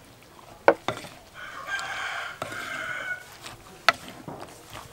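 Wooden pestle knocking sharply against a clay mortar several times as papaya salad is tossed and pounded, the loudest knock a little under a second in. In the middle a rooster crows once, a single call about two seconds long.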